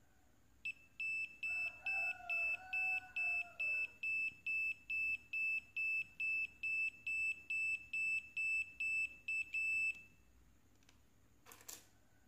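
The buzzer on a homemade NE555/4017 test module, driven by an NE555 running as an oscillator, beeps in one high steady tone a little over twice a second, then stops after about nine seconds. Repeated beeping from this tester is the sign that the NE555 under test is working.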